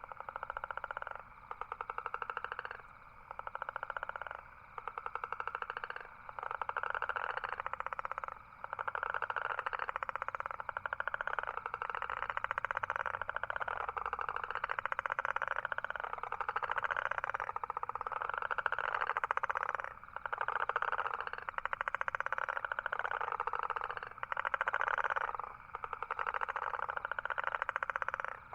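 Toads trilling: buzzy, pulsed calls, first in short bouts of a second or two with brief pauses, then running almost unbroken from several calls overlapping, with breaks again near the end.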